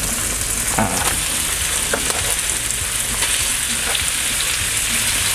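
Red chilies and garlic sizzling in oil in a wok as chopped raw chicken tenderloin goes in: a steady frying sizzle, broken by a few brief clicks.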